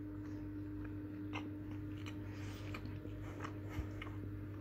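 Quiet chewing of a mouthful of chicken seekh kebab roll in roti, with faint scattered mouth clicks, over a steady low hum.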